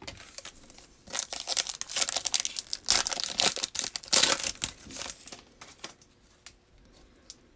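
Foil wrapper of a Panini Prizm football card pack crinkling and tearing as it is ripped open by hand: a rapid run of crackles from about a second in until about six seconds, then a few faint clicks as the cards are handled.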